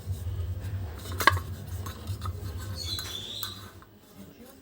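Metal parts of a vacuum cleaner motor handled during reassembly: rubbing and clinking over a low rumble, with a sharp click about a second in and a short high squeak about three seconds in.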